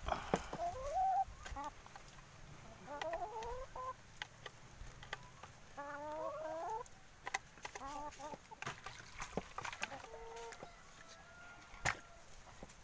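Brown laying hens in cages making short runs of rising and falling clucking calls several times, with sharp taps scattered between them as they peck at the feed trough.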